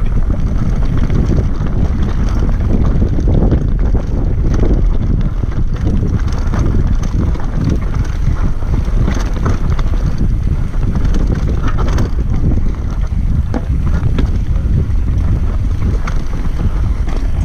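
Wind buffeting the microphone as a downhill mountain bike descends a rocky trail at speed, with steady tyre rumble over loose stones and frequent small rattles and knocks from the bike.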